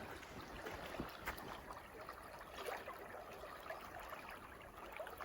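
Faint, steady rush of a swollen creek, with soft scattered ticks of footsteps in snow.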